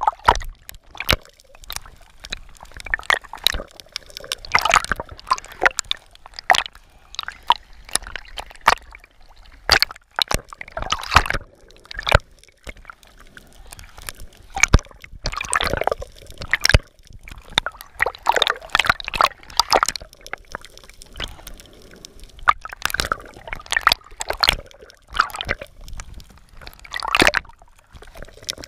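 Water sloshing and bubbling around a camera held underwater. It comes in bursts every few seconds, with scattered sharp clicks between them.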